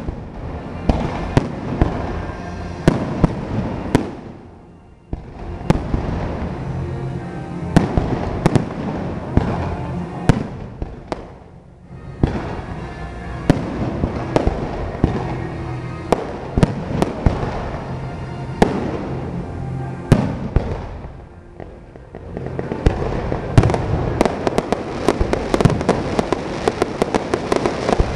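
Aerial firework shells launching and bursting one after another as sharp bangs, with a few brief lulls; in the last few seconds the bangs come thick and fast.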